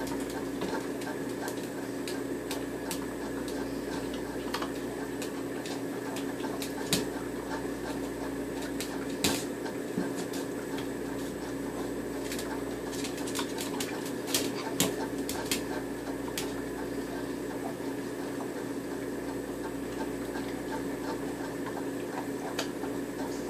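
A steady mechanical hum, with scattered sharp clicks and taps over it, most of them in the middle stretch.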